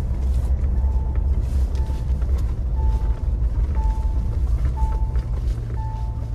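Inside a Mahindra Thar 4x4 driving on a snowy mountain road: a steady low engine and road rumble, with a dashboard warning beep sounding about once a second.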